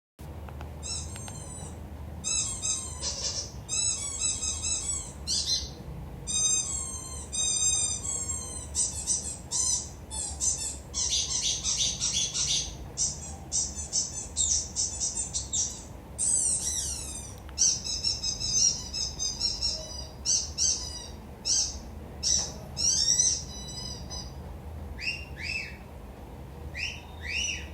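A rapid run of high-pitched, bird-like chirps, trills and whistles in quick bursts, with a few sweeping falling calls partway through and sparser single chirps near the end. A steady low hum lies underneath.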